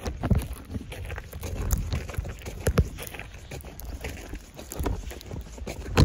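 Footsteps in fresh snow while walking, an uneven run of soft thumps with a sharper knock near the end, over wind rumbling on a phone microphone.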